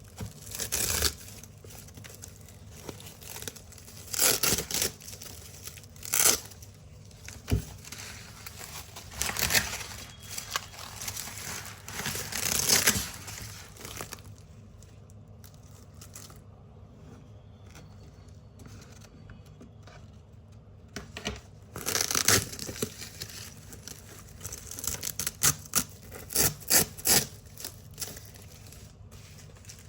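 Velcro hook-and-loop strips being ripped apart from a big black roll: short crunchy tearing rips, some longer and some quick in a row, with a quiet stretch of several seconds in the middle and a run of quick rips near the end.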